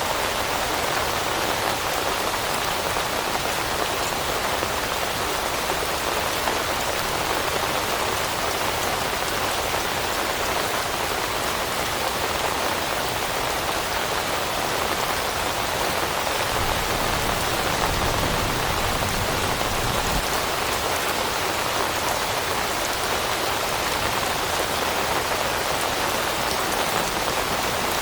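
Steady rain falling on leaves, a dense, even patter. A soft low rumble swells for a few seconds a little past the middle.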